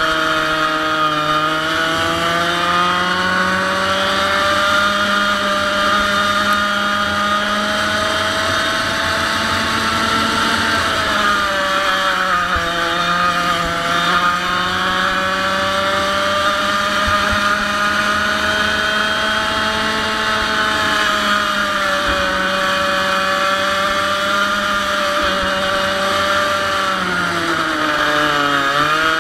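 A 100cc two-stroke kart engine running near full revs, its high buzzing pitch slowly rising on the straights and falling off as the kart slows for corners, about halfway through and again sharply near the end.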